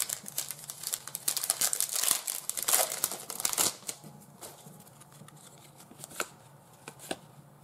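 A plastic trading-card pack wrapper being torn open and crinkled for about four seconds. After that come a few faint clicks of the cards being handled.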